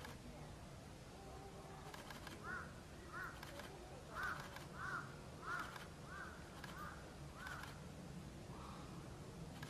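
A crow cawing, a run of about eight caws a little over half a second apart, over a faint steady low background hum.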